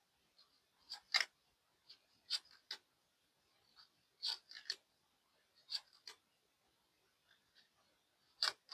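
Tarot cards being shuffled and handled: a series of short snaps and swishes, often in quick pairs, with short pauses between.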